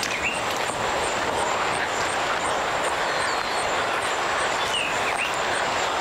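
Steady rushing roar of a large waterfall heard through the forest, with a regular high insect pulse repeating several times a second. A few short falling bird chirps come about half a second in and again near the end.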